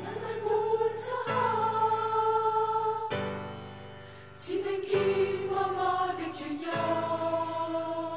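Children's choir singing long held notes over sustained keyboard chords in a slow song, the chords changing every couple of seconds.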